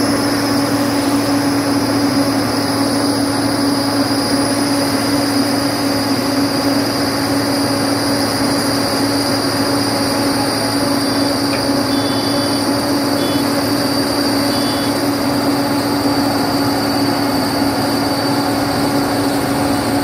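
Heavy road-paving machinery, an Apollo asphalt paver with a tipper truck unloading asphalt mix into its hopper, running steadily at high revs close by. It makes a loud, even engine drone with a steady high whine over it.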